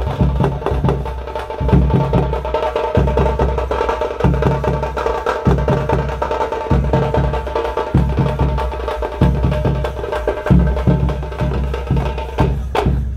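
Street drum band beating a fast kuthu dance rhythm on large stick-beaten drums, with steady held tones sounding above the beat. A sliding tone falls sharply near the end.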